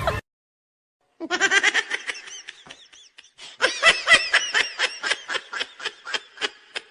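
Laughter sound effect: a person laughing in quick repeated pulses, in two bouts. It starts abruptly about a second in, after a moment of dead silence, with a short pause between the bouts.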